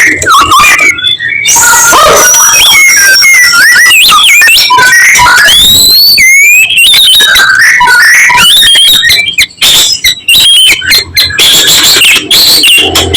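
White-rumped shama singing: a loud, fast, varied run of whistled notes that glide up and down, broken by a burst of short, sharp notes about nine seconds in.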